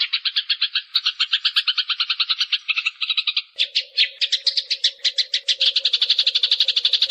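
Eurasian tree sparrows chirping in a fast, unbroken run of short, even chirps, about ten a second. A low steady hum joins about halfway through.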